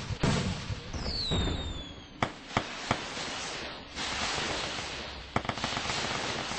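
Fireworks going off: a continuous crackle with several sharp bangs, and a whistling firework falling in pitch about a second in.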